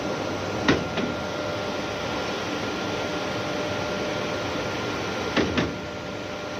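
Drilling-rig drawworks on a variable-frequency drive running with a steady mechanical hum carrying faint steady tones, broken by a pair of sharp knocks just under a second in and another pair near the end. The drawworks is making an abnormal sound whose cause has not been found.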